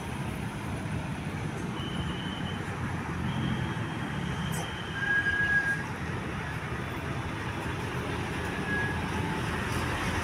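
Roadside traffic noise: a steady low rumble of vehicles, swelling briefly about five seconds in, with a few faint, short high tones over it.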